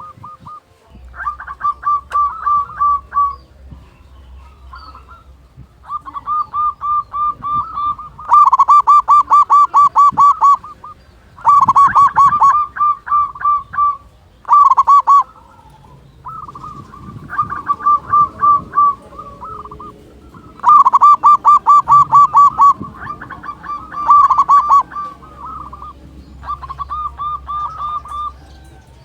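Zebra dove (perkutut) singing: bouts of rapid staccato cooing notes, about ten a second, each bout lasting a second or two and repeated over and over, some much louder than others.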